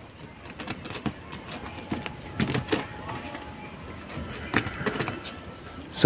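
Faint scattered clicks and rustles of hands stripping and twisting thin speaker wires and handling a multimeter test probe.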